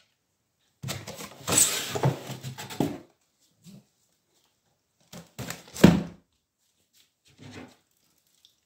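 A wooden box and cardboard boxes being shifted by hand: a scraping rustle from about a second in, lasting about two seconds, then a short sharp knock about six seconds in and a faint bump later.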